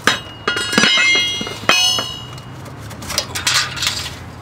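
Steel tools clanking against metal: four sharp clinks, each with a bright metallic ring, in the first two seconds, then softer handling and scraping.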